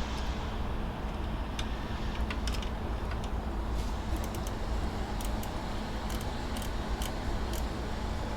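Light metallic clicks and clinks of a hand tool working the locking nut of a Subaru Impreza's air-conditioning belt tensioner as it is tightened, a dozen or so at irregular spacing, over a steady low rumble.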